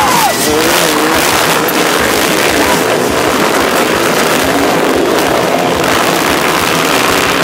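Several off-road motorcycles racing past close by, their engines revving up and down.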